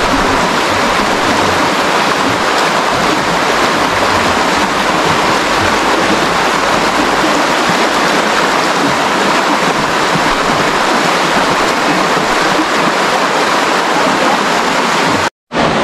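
Shallow river running over rocks, a steady rush of water noise. It drops out briefly near the end.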